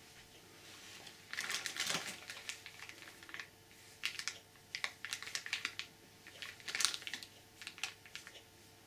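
Clear plastic bag around a camera strap crinkling as it is handled and drawn out of its box, in irregular bursts of crackles.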